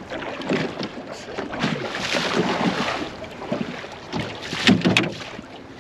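Choppy water slapping and splashing against the hull of a small open fishing boat, with wind buffeting the microphone; a louder cluster of knocks and splashes comes near the end.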